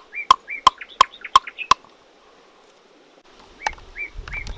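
A large knife chopping ginger on a wooden chopping board, about three sharp chops a second for the first two seconds, with small birds chirping. After a short pause, softer taps, a low rumble and more chirps come near the end.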